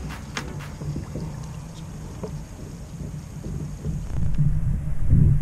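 Low rumble of wind and water around a kayak, with a few sharp clicks in the first half second and louder dull thumps from about four seconds in, as a wire crab pot is handled above the boat.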